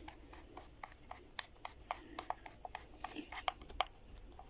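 Faint, irregular small clicks and rubbing of hands working on a pond air pump's plastic housing and fittings, a few clicks a second.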